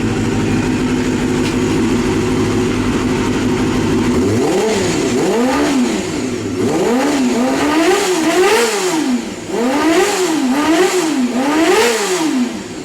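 Warmed-up 250 cc RR sport bike engine with a non-stock exhaust, idling steadily and then revved in about eight quick throttle blips about four seconds in, its pitch rising and falling with each one.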